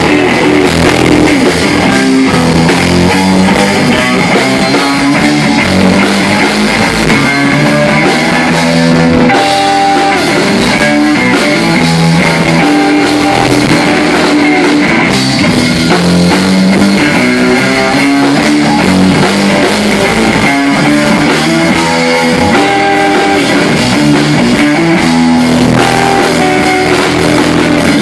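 Live rock band playing loudly and continuously on electric guitar, bass guitar and drum kit.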